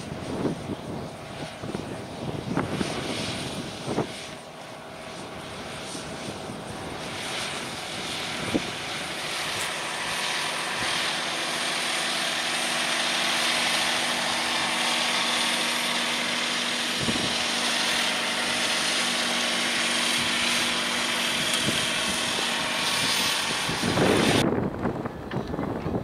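John Deere 6R 250 tractor's six-cylinder diesel running steadily under load as it pulls a reversible plough through the soil. It grows louder over the first dozen seconds and then holds. About a second and a half before the end the sound cuts off abruptly and is replaced by gusting wind on the microphone.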